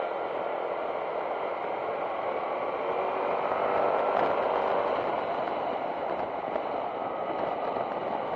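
Motorcycle engine running at cruising speed, mixed with wind rushing past the rider. It swells a few seconds in, then eases off.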